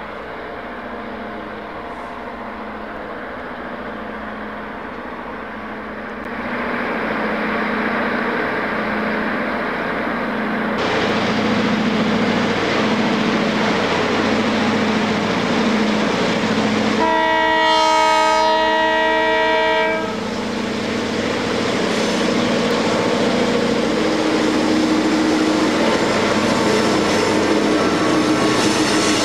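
Sound-equipped model EMD GP diesel locomotives working upgrade: a steady pulsing engine sound that grows louder as the train approaches. There is one long multi-tone horn blast about two-thirds of the way through, lasting about three seconds.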